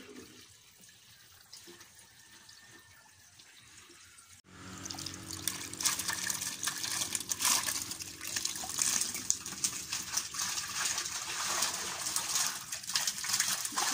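Water splashing and dripping as a net full of live tilapia is dipped into a bucket of water and lifted out, the fish thrashing. The splashing starts suddenly about four and a half seconds in, after a quiet stretch, with a low steady hum underneath.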